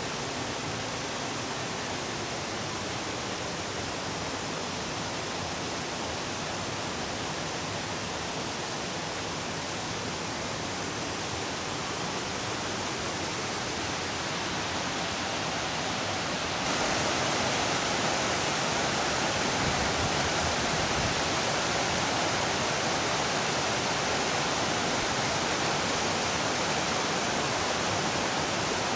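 Steady rush of a creek's running water. It grows suddenly louder and brighter about seventeen seconds in.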